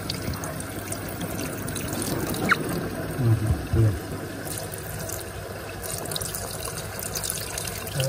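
Water trickling steadily out of a hole in the tub of an LG F14WD84EN0 washer-dryer and dribbling down into the base pan: a leak while the machine fills.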